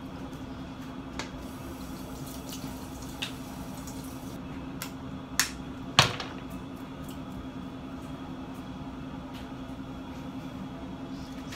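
Bathroom tap running into the sink while water is splashed on the face, with a steady low hum under it. A few sharp clicks and knocks cut in, the loudest about six seconds in.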